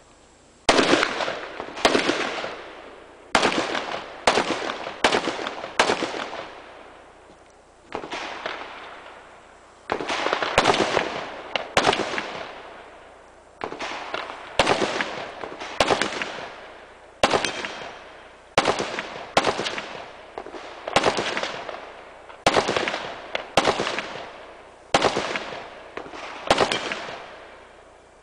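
Rifle firing a string of single shots in an IPSC rifle stage, about two dozen in all, roughly one a second with a few longer pauses between strings. Each shot is loud and echoes briefly as it fades.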